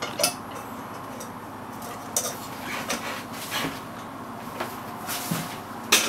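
A few scattered clinks and taps of a tablespoon against a mixing bowl as margarine is spooned in, over steady background noise.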